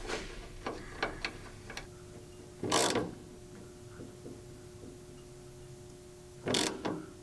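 Ratcheting wrench tightening the air fitting on the top plate of a helper air bag: a few light clicks, then two short bursts of ratchet clicking about four seconds apart.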